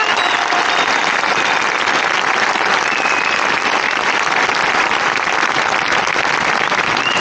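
Large outdoor crowd applauding steadily, thousands of hands clapping at once.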